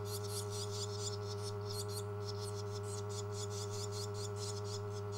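Barn swallow nestlings giving rapid, high-pitched begging calls while being hand-fed, many chirps a second. A steady low electrical hum runs underneath.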